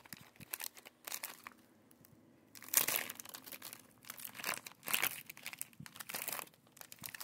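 Plastic snack bags filled with applesauce crinkling as they are handled and shifted in a plastic container, in irregular bursts, loudest about three seconds in.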